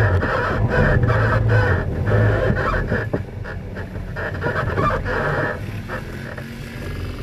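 Racing ATV engine heard from a camera mounted on the quad, revving up and dropping back in repeated surges as the throttle works over rough trail, louder in the first couple of seconds and again about four to five seconds in.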